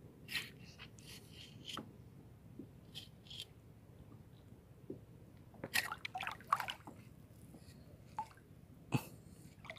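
Underwater sound through a camera underwater: scattered faint clicks and short water gurgles, a little louder and busier in the second half.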